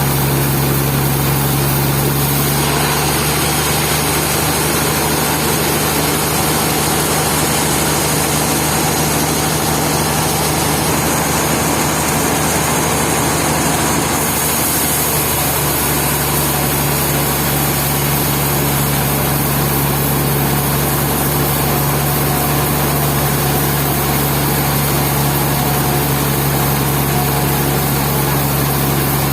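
Sawmill machinery running steadily, a loud low hum with a hiss over it that shifts slightly twice.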